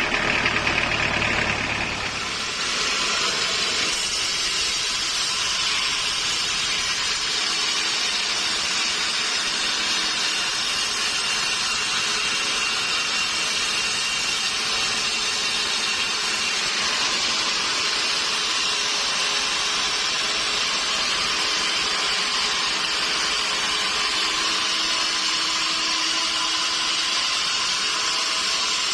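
Sawmill saw running steadily through a log, a continuous high-pitched hiss. A low rumble under it drops away about two seconds in.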